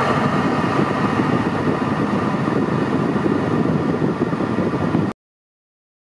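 Steady running noise inside a Porsche 911 SC's cabin: the air-cooled flat-six idling while the electric air conditioning's fan blows. It cuts off abruptly about five seconds in.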